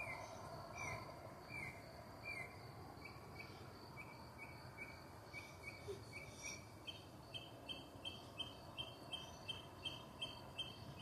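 A bird singing at night in runs of repeated phrases: a slurred note about every 0.8 s, then quicker short notes, and from about two-thirds through a higher doubled note repeated about twice a second. A steady high insect trill runs behind it.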